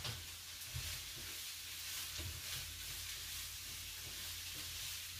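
Tofu frying in a pan with a faint, steady sizzle, and a few soft knocks of a utensil against the pan.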